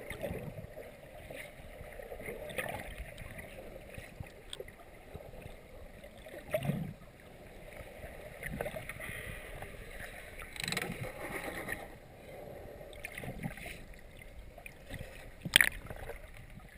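Muffled underwater water noise heard through a GoPro's waterproof housing: irregular sloshing and bubbling as the swimmer moves, with scattered clicks and knocks, the loudest a sharp knock near the end.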